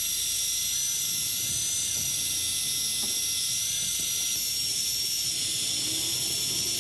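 Small electric fishing reel whining steadily as its motor winds in line against a hooked hairtail, its pitch sagging slightly about five seconds in.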